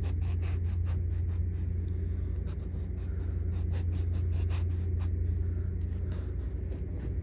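A kitchen knife slicing a raw potato into thin Hasselback cuts, a quick series of short crisp slicing strokes, over a steady low hum.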